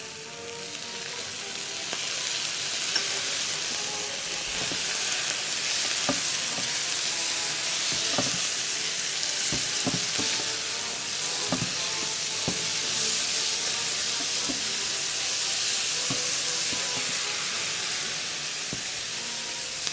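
Spinach stir-frying in a very hot non-stick pan: a steady sizzle that grows louder over the first couple of seconds as the just-poured soy sauce hits the pan, with a few light knocks from stirring.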